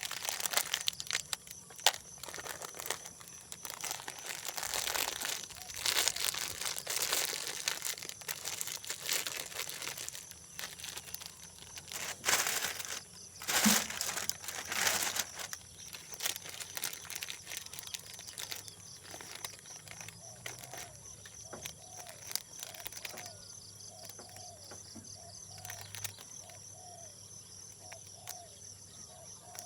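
Irregular crinkling and rustling handling noises, heaviest in the first half, over a steady high-pitched chirring of insects. In the last third a faint short sound repeats about once a second.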